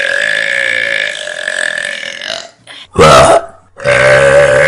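Three loud burps from a person: a long, drawn-out one, a short, sharp one about three seconds in, and another long one near the end.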